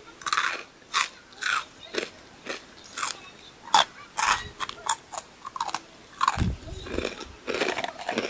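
Crunchy Calbee Jagarico fried potato sticks being bitten and chewed close to the microphone, a crisp crunch about twice a second. A dull low thump comes about two-thirds of the way through.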